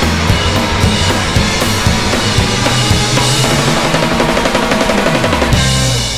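Live band of drum kit, bass guitar and electric guitars playing a soul-rock jam with busy drums. Near the end the band stops together and the final chord starts to ring out and fade.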